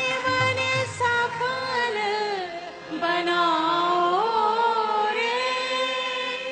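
A woman singing a Hindi devotional bhajan in long held notes that slide between pitches.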